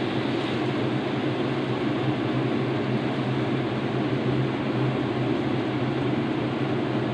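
Steady whirring hum and hiss of a kitchen exhaust fan running over the stove.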